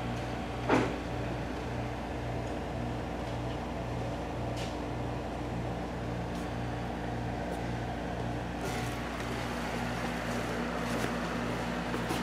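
Steady low machine hum, pulsing regularly about one and a half times a second, with a single sharp click about a second in and a few faint ticks later.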